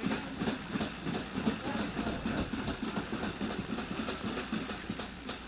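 Ice hockey rink ambience before play: an indistinct murmur of distant voices with scattered knocks and clicks over a steady low hum.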